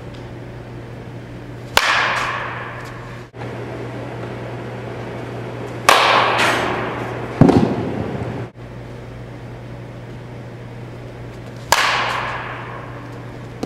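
A metal baseball bat hitting balls in an indoor batting cage: three sharp cracks about four seconds apart, each followed by about a second of ringing, with a heavier low thud about a second and a half after the middle one. A steady low hum runs underneath.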